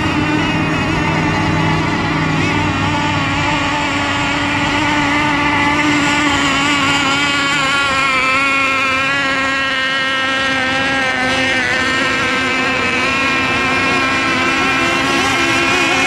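Several radio-controlled racing boats running flat out: a steady, high engine buzz made of several overlapping pitches that waver slightly as the boats race.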